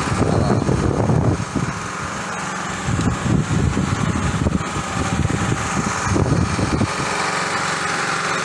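A small engine running steadily, with stretches of low rumble over it.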